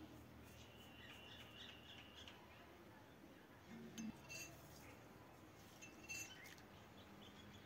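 Near silence, with a few faint high-pitched blips, the clearest about four and six seconds in.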